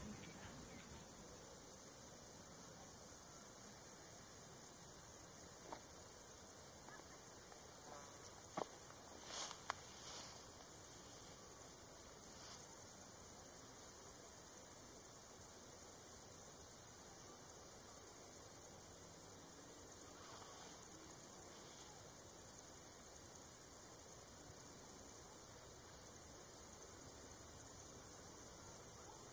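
Crickets chirping in a steady, high-pitched chorus, with a few faint short sounds about nine to ten seconds in.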